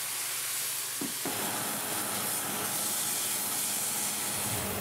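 Sandhill crane breasts searing in a very hot cast-iron skillet: a steady hiss of sizzling fat and juices.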